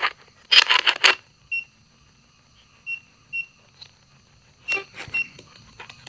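Short, high electronic beeps from a small device, about five of them at irregular intervals, over a faint steady electronic whine, with two brief bursts of crackle about half a second in and near the end.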